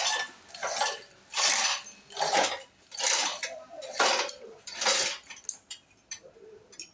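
A metal hand tool working on the car in repeated short rasping strokes, about one a second, followed by a few light metallic clicks near the end.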